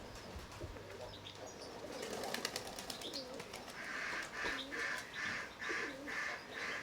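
Pigeons cooing, with a quick flurry of wing claps about two seconds in. In the second half a run of short noisy pulses repeats about twice a second.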